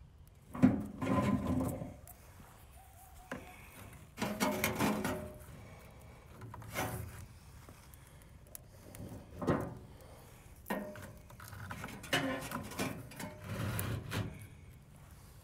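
Sticks being fed into a small backpacking wood stove: a series of knocks, scrapes and rubs of wood against the metal firebox. The loudest is a sharp knock about half a second in.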